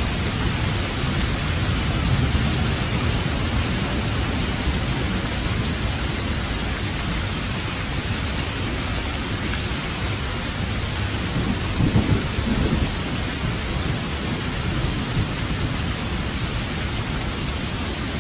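Heavy rain falling steadily with low rolling thunder, and a louder roll of thunder about twelve seconds in.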